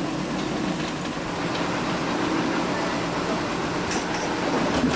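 Steady rumbling cabin noise aboard a Scorpio 72 sailing yacht, with a light click about four seconds in.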